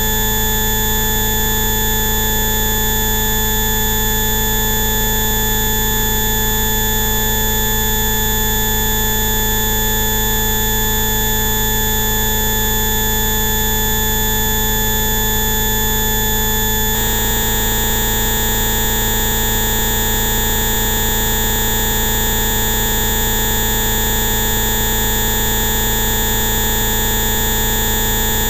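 Electronically generated steady tones, many pitches held at once, from a Rife-style bioresonance frequency set. About 17 seconds in, the whole set of tones switches abruptly to a different one.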